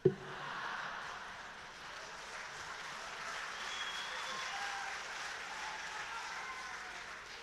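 Theatre audience applauding, with a few faint voices in the crowd. It starts abruptly with a sharp knock and fades near the end.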